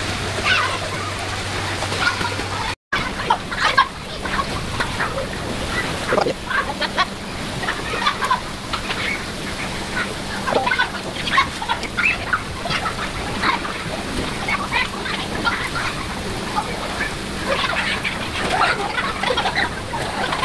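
Poolside background sound played back fast, at about double speed after a brief dropout about three seconds in: scattered voices and splashes turned into rapid, short, high-pitched blips over a steady hum.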